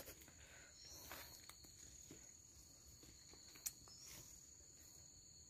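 Faint, steady high-pitched chirring of insects, with light rustles and one sharp click a little past halfway.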